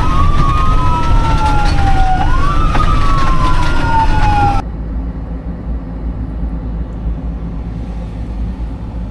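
Fire engine sirens wailing: two tones slowly rising and falling and crossing each other. They cut off suddenly about four and a half seconds in, leaving a steady low rumble.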